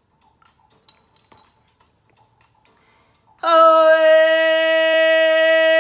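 A woman's voice toning: one long sung note held at a steady pitch, starting suddenly about three and a half seconds in. Before it, only a few faint clicks.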